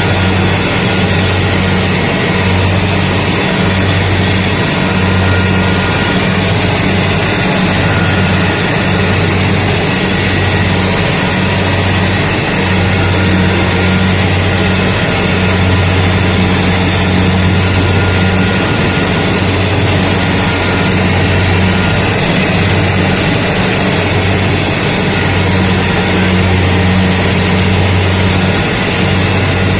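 Rice combine harvester running under load as it cuts through standing rice: a loud, steady low engine drone with a dense mechanical whir over it, the low hum swelling and easing slightly every second or two.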